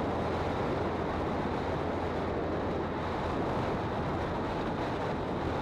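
Motorcycle riding at a steady speed: wind rushing over the on-bike camera microphone, with the engine and road noise underneath as an even, unchanging rush.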